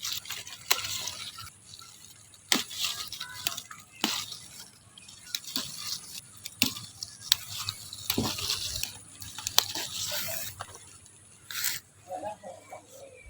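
Kitchen water sounds: splashing and dripping, broken by irregular sharp clicks and knocks as food and utensils are handled.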